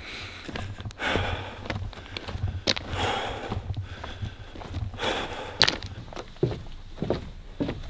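A man walking while carrying a heavy coil of rope, with footsteps, breathing and handling noise, and sharp clicks and knocks every second or so.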